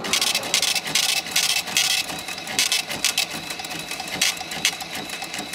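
Dense, rapid, irregular mechanical clicking and rattling with a faint steady high tone, added as sound design over an opening title card.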